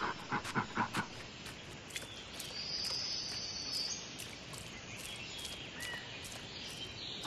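Nature ambience of insects chirping in a steady, evenly repeating pattern, with a brief high whistling bird-like call in the middle and a few small chirps later. A quick run of five or so short animal calls opens it in the first second.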